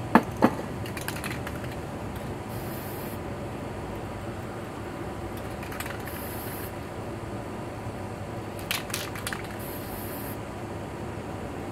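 Aerosol spray paint cans in use: three short high hissing spray bursts, a few seconds apart, with sharp clicks and knocks of the metal cans being handled, the loudest two right at the start and a quick cluster near the end.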